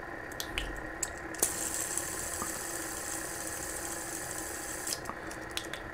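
A clear plastic Batman LED fidget spinner spinning on its centre bearing: a steady high whir that starts with a flick about a second and a half in and stops suddenly near the end. A few light clicks come before it as the spinner is handled.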